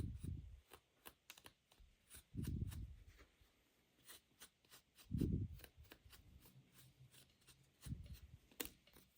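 Faint handling noises of toys and packaging close to the microphone: four soft low thuds a couple of seconds apart, with scattered small clicks and crinkles between them.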